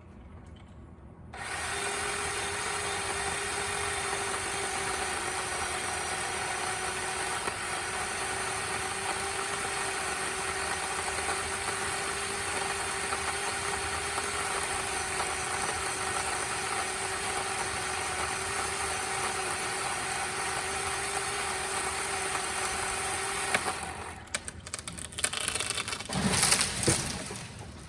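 Remington Ranger II electric pole chainsaw starts about a second in and runs steadily with a constant whine for about 22 seconds while cutting a dead ash limb, then stops. After it stops come a few seconds of irregular knocks and rustling, the loudest near the end.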